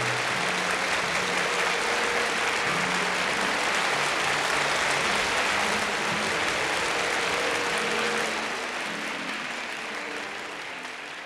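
Concert-hall audience applauding steadily, fading away over the last few seconds.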